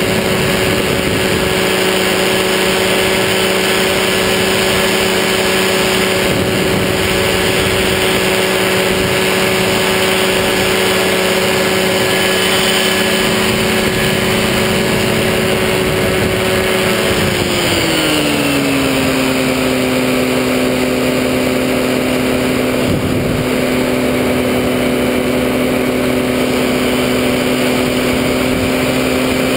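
Powered parachute's engine and propeller running steadily in flight, with wind noise over the helmet-mounted microphone. A little past halfway the engine pitch slides smoothly down and settles lower as the throttle is eased back.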